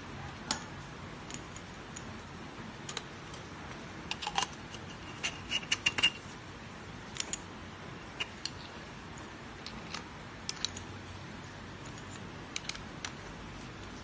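Scattered small metallic clicks and clinks as a stainless-steel Hello Cucina hand coffee grinder is handled and its parts knock together. A quick run of louder clinks, some of them ringing briefly, comes about five to six seconds in.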